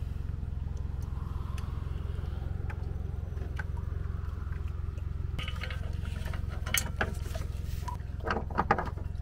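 A steady low rumble throughout, with a few sharp metallic clicks and rattles near the end as a trailer winch strap's steel hook is worked off a boat's bow eye.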